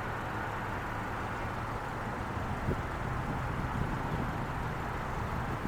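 Outdoor street ambience: a steady hum of distant road traffic, with a couple of faint knocks near the middle.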